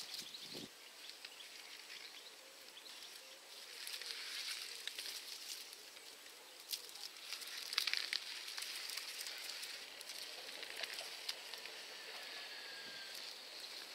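Quiet rustling and crackling of onion foliage and dry stalks as onions are pulled from the soil and gathered into a bunch by hand. The rustling swells about four and eight seconds in.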